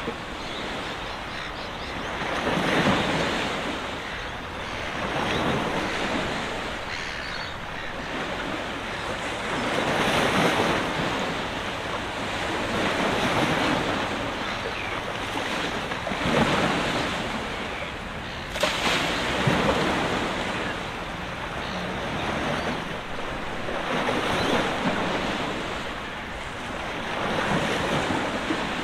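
Small waves washing in on the shore, the sound swelling and fading every few seconds, with one sharper, louder wash about two-thirds of the way through.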